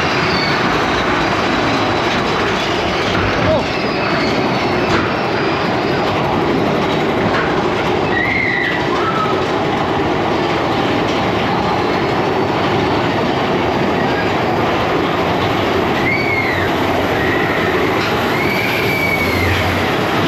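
Big Thunder Mountain Railroad mine-train roller coaster running along its track, with a steady rattle and rumble of the cars and short wheel squeals on the curves, one about eight seconds in and a few more near the end.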